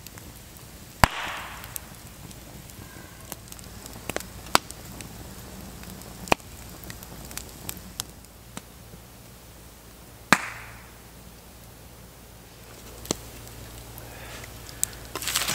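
Wood campfire crackling, with scattered sharp pops. Two loud pops come about a second in and about ten seconds in, each followed by a brief hiss.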